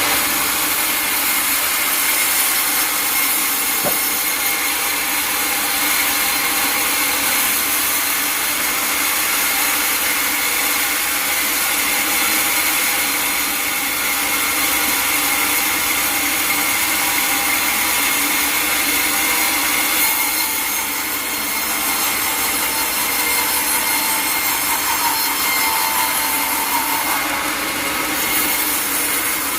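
Sawmill blade cutting through a log: a steady, continuous sawing noise with a constant high whine from the blade.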